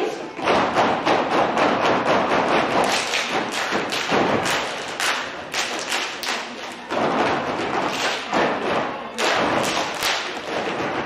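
Step team stomping and clapping in unison, a fast run of sharp, rhythmic thuds and slaps with short breaks in the pattern.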